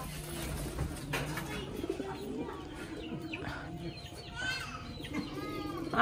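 Domestic pigeons cooing repeatedly in low, wavering calls, with a few higher bird chirps mixed in.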